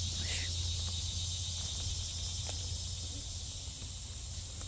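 Steady, high-pitched insect droning over a constant low hum, with a few faint ticks.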